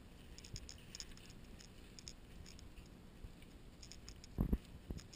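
Faint scratchy rustling and light ticking in forest leaf litter, with a few short low thumps about four and a half seconds in.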